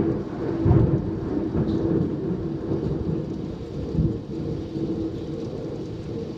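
Thunder rumbling after a close clap, surging again about a second in and around four seconds, then slowly dying away, over steady rain.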